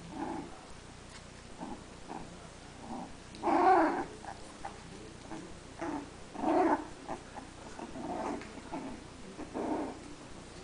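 Three-week-old dachshund puppies growling at each other as they wrestle in play, in a string of short bursts, the loudest a few seconds in.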